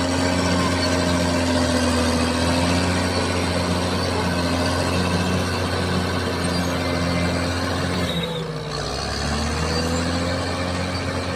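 Caterpillar bulldozer running, with a wavering squeal and a regular pulsing over the engine. The title blames this noise on damaged idler and rollers in the undercarriage. The sound drops away briefly about eight seconds in, then picks back up.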